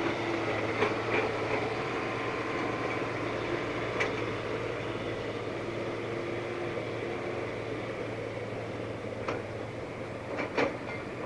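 Excavator's diesel engine running steadily, with a few short metallic knocks and creaks from the working machine.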